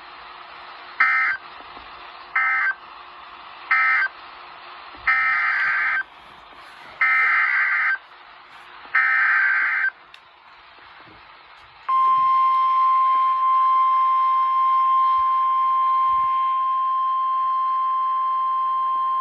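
Emergency Alert System data bursts on NOAA Weather Radio: three short screeching bursts of the end-of-message code closing one warning, then three longer bursts of the SAME header opening the next. About twelve seconds in, the steady 1050 Hz weather radio warning alarm tone starts and holds.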